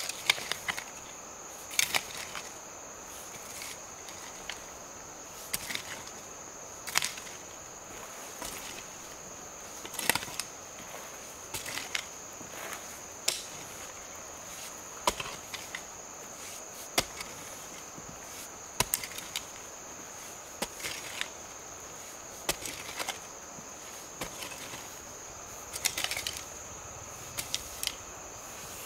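Sharp, short knocks at irregular intervals, one every second or two, like chopping or striking wood, over a steady high-pitched chorus of crickets.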